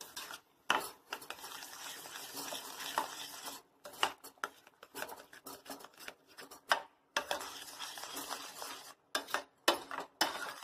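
Metal spoon stirring and scraping a thick bread, milk and jaggery halwa mixture around a stainless steel pan, with frequent clinks of the spoon against the pan. The strokes are uneven and broken by a few short pauses.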